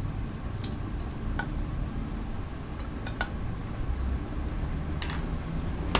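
A steady low engine rumble with a few sharp metallic clinks and ticks spaced irregularly, about a second or two apart.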